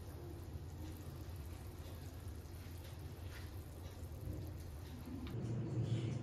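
Pot of pappucharu (lentil stew) boiling on a gas burner: soft scattered bubbling pops over a low steady hum, which swells a little louder near the end.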